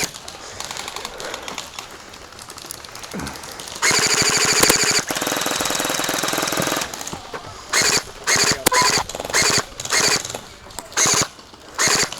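Electric gel blaster firing full-auto: one long burst of rapid shots lasting about three seconds, then a string of short bursts in quick succession.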